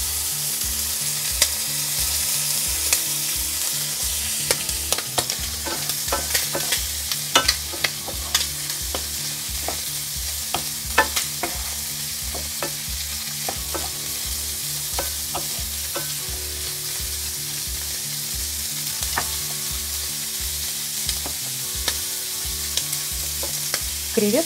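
Large shrimp sizzling in olive oil and butter in a nonstick frying pan, with scattered pops and clicks as a wooden spatula stirs and turns them.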